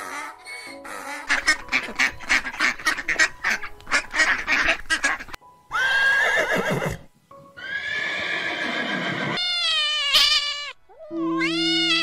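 A donkey braying in a rapid run of harsh pulses, then a horse neighing three times, the last whinny quavering. Near the end a cat meows, over soft background music with held tones.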